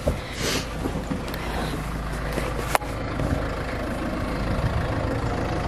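SUV engine idling with a steady low hum, and one sharp click a little under three seconds in.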